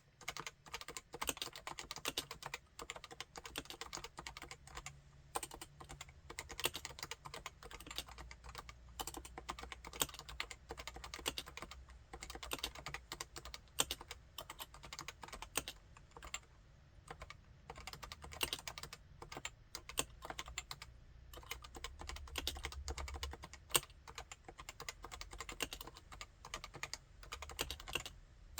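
Typing on a Topre Realforce 87UW tenkeyless keyboard with electrostatic capacitive (Topre) switches: a fast, continuous stream of keystrokes, with a brief lull about halfway through.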